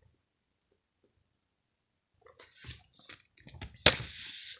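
Near silence for about two seconds, then faint handling noises: paper or cardboard rustling with light ticks. A sharp click comes near the end, followed by a short stretch of rustling.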